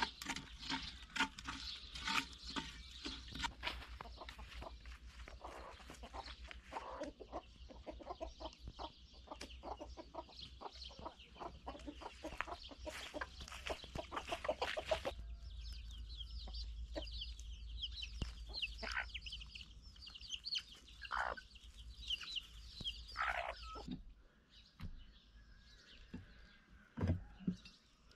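Chickens clucking, the sounds coming thick and fast over the first half and thinning out near the end.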